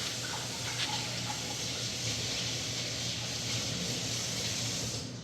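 Water running steadily from a tap, shut off near the end.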